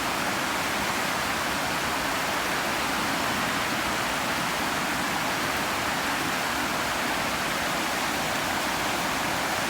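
Steady rushing of a flood-swollen creek running high, with its water flowing fast.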